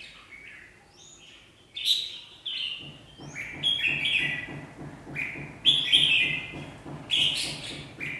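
Rival red-whiskered bulbuls calling at each other: quick short chirps and warbled phrases, sparse at first, then loud and frequent from about two seconds in.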